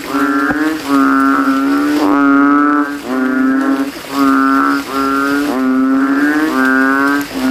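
Banded bullfrogs (Kaloula pulchra) giving loud, deep bellowing calls one after another, about one a second, several frogs calling against each other in a chorus.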